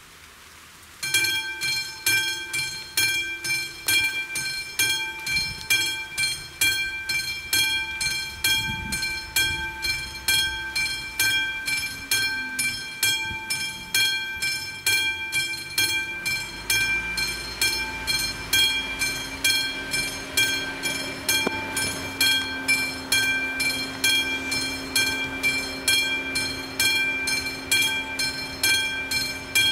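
Level-crossing warning bell switching on suddenly about a second in and ringing steadily at about two strokes a second, each stroke a bright ringing tone with many overtones: the crossing is closing for an approaching train. From about halfway a van's engine idles underneath.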